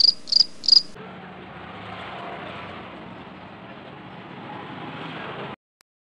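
Four quick, high-pitched cricket chirps, an added comedy sound effect for an awkward silence, in the first second. A low steady room hiss with a faint hum follows.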